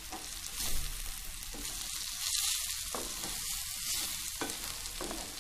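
Dried sprats fried with onions and green chilies sizzling in a hot steel pan as a wooden spatula stirs and turns them, with a few sharp knocks of the spatula on the pan.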